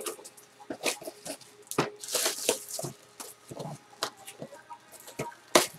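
Clear plastic shrink wrap crinkling and tearing as it is peeled off a cardboard trading card box, in irregular crackles, with one sharper crackle near the end.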